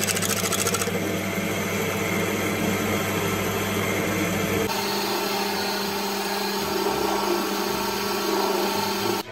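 Electric-motor-driven metal lathe running while a twist drill bores into a metal bar held in its chuck: a steady motor hum under a harsh cutting noise. The sound changes abruptly twice, about a second in and again just before the middle.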